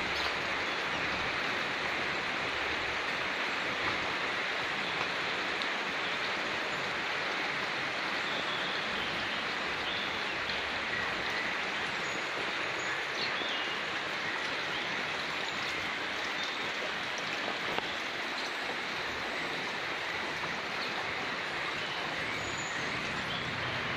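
Steady rain falling on leafy trees and garden plants, an even wash of noise that does not let up.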